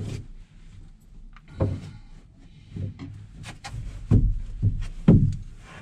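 Irregular knocks and clicks of hand tools working on the refitted raw water pump's bolts in a cramped engine compartment. About six separate knocks, the loudest about four and five seconds in.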